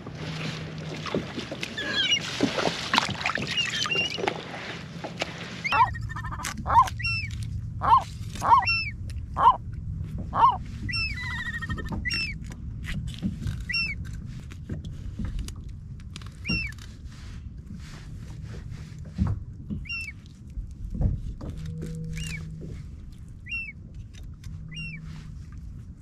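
Gulls calling over the water in short, repeated cries, many in a row. A few soft knocks come from a knife working fish on a wooden cutting board.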